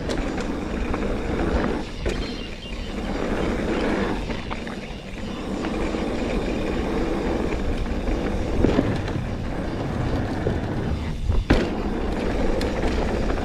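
Mountain bike riding a dirt jump line: a steady rolling rumble of tyres on dirt and rattle from the bike, with a few sharp knocks in the second half as it lands jumps.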